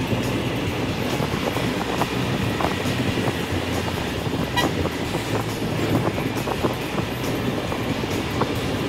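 Steady in-cabin road and engine rumble of a 2002 Mazda Tribute driving along on a wet road, with scattered small ticks.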